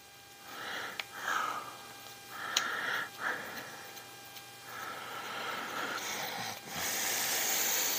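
A person breathing through the nose in short puffs while working at a stubborn small screw, with a longer breath near the end. A few faint clicks of a small hex driver and plastic axle parts being handled.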